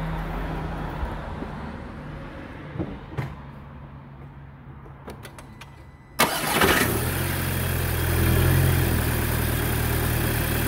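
A low hum, then about six seconds in the VW Golf GTI's 2.0 litre turbo four-cylinder is cranked and catches at once, flaring up briefly before settling to a steady idle. It starts smoothly with the new N80 purge valve fitted.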